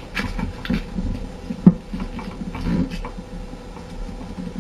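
A sheet of paper rustling and crinkling as it is handled and folded flat on a table, with one sharp knock about a second and a half in.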